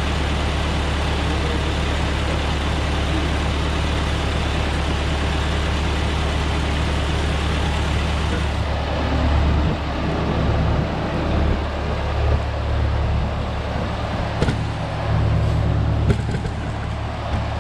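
Ford 8N tractor's four-cylinder flathead engine running, warming up after a cold start: steady at first, then uneven from about halfway through, with irregular low swells.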